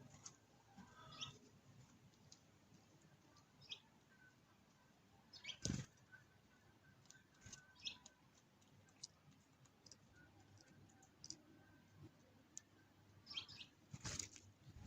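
Faint, scattered short chirps of sparrows, with a single sharp knock about six seconds in and a few more knocks near the end.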